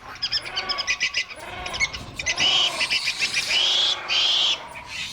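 Monkeys calling: several high, drawn-out squeals of about half a second each, with quick chattering and lower arching calls in between.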